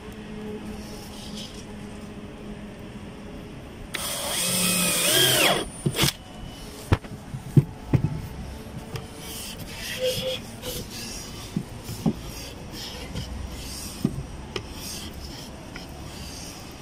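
Power drill running once for about a second and a half, its motor pitch rising and falling as it works into wood, followed by scattered knocks and taps of wooden parts being handled.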